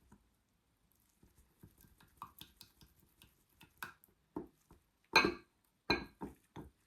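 Utensils and containers clinking and knocking while soap batter is mixed with colourant: scattered light clicks, then a few louder knocks about five and six seconds in.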